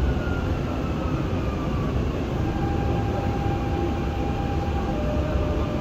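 Dubai Metro train heard from inside the passenger car: steady running rumble, with the electric motor whine stepping down in pitch as the train slows into a station.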